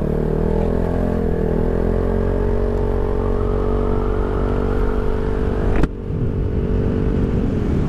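Rusi Rapid 150 scooter's engine running through an aftermarket full-system exhaust with its silencer fitted, holding a steady note while riding. About six seconds in there is a sharp click, and the engine note then fades.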